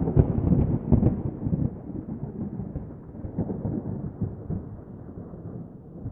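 Thunder: a rolling, crackling rumble, loudest at the start and fading away over several seconds.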